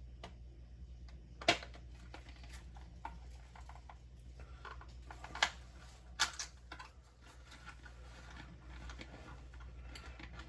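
Light handling noise from a box of 20 gauge shotgun shells: scattered soft taps and rustles with a few sharp clicks, the clearest about a second and a half in and around five and a half and six seconds in, over a low steady hum.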